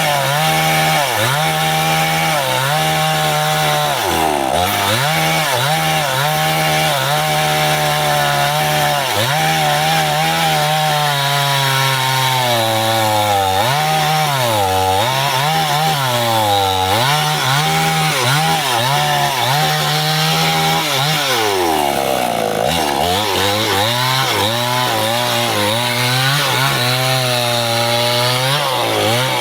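Stihl two-stroke chainsaw running at high revs while cutting through wood. Its engine pitch repeatedly sags as the chain loads up in the cut and then climbs back, with the deepest sag about two-thirds of the way through.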